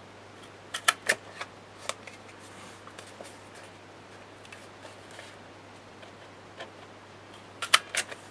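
Handheld hole punch snapping as it punches binding holes through a brown kraft strip: a quick cluster of sharp clicks about a second in, one more about two seconds in, and another cluster near the end.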